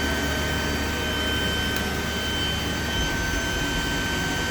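Steady whir of the cooling fans on running GPU cryptocurrency mining rigs, with a steady high-pitched whine over it.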